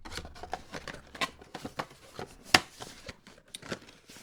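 Camera-box packaging being handled: a run of small rustles and clicks, with one sharp click about two and a half seconds in.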